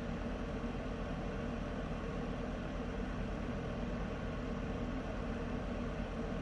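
Heater running: a steady, even noise with a low hum beneath it, unchanging throughout.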